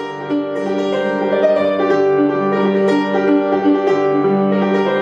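Instrumental background music of held notes over a slowly changing low note.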